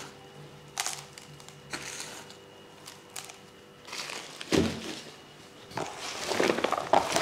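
Spice shaken from a packet onto diced raw lamb and fat in a plastic basin, a dull thud about four and a half seconds in, then bare hands plunging into the chopped meat and mixing it, louder toward the end.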